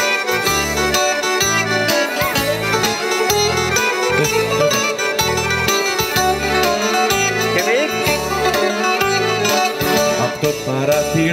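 Live amplified band playing the instrumental introduction of a Greek popular song on guitar and keyboard over a steady, pulsing bass line.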